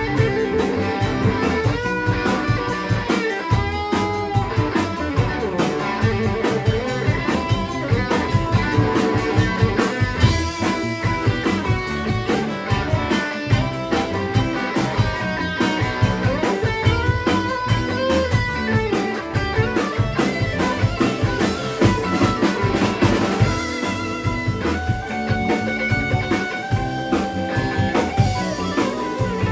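Live blues band playing electric guitar over bass and drum kit, with bent lead-guitar notes and no singing.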